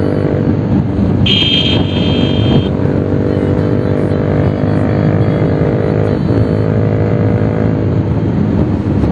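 Bajaj Pulsar 220's single-cylinder engine running through an SC Project aftermarket exhaust while riding, a steady loud exhaust note. A brief high tone sounds about a second in, and the engine note dips briefly about six seconds in.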